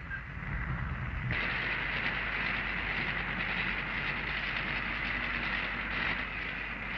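A steady rushing noise sets in about a second in and holds evenly, over the low hum of an old film soundtrack.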